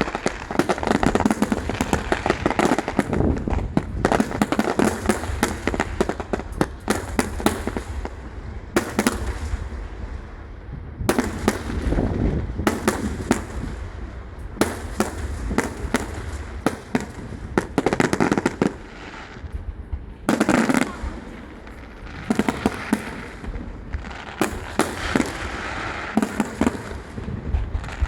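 Aerial fireworks going off without pause: dense rapid crackling pops, with heavier bangs every few seconds.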